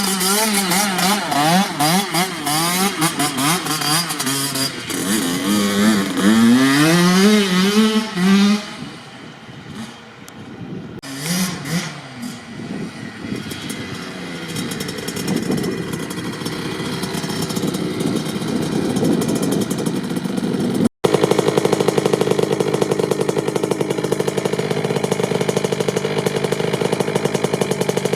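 Kawasaki KX65's 65cc single-cylinder two-stroke engine revving up and down repeatedly, then dropping to a quieter low running with a couple of short blips and slowly getting louder. After a brief break it runs steadily at one pitch, loud and close.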